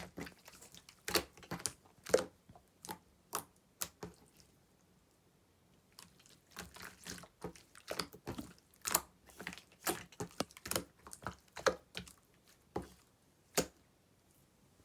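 Clear slime being pressed and poked by hand, giving sharp irregular clicks and pops as trapped air bursts. The clicking pauses for about two seconds partway through, then picks up again.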